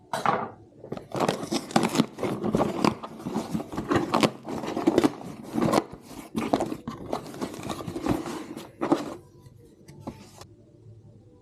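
A parcel of paper and cardboard packaging being handled and torn open: a busy run of rustles, scrapes and tears that stops about nine seconds in.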